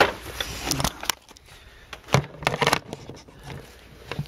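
Scattered light clicks and knocks of handling as the camera and hand tools are moved about, with a sharper knock about two seconds in.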